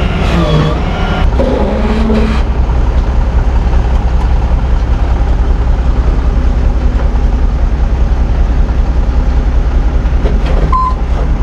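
A heavy vehicle's engine running steadily with a low drone.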